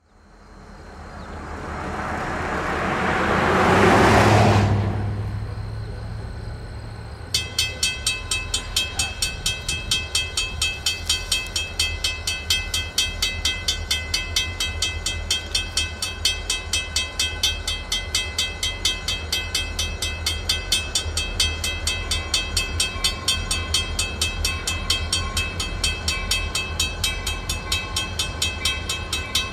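A rising then fading whoosh peaks about four seconds in. About seven seconds in, the grade crossing's WCH mechanical bell starts ringing in rapid, evenly spaced strokes that go on steadily over a low rumble.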